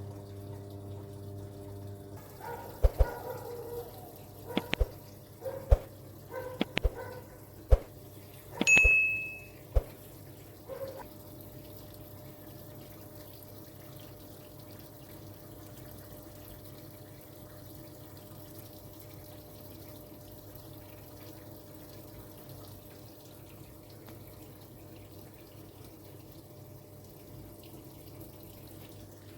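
Toshiba fully automatic top-loading washing machine. A hum stops about two seconds in, then there is a string of sharp clicks and knocks and a single high beep about nine seconds in. After that, water runs steadily into the machine.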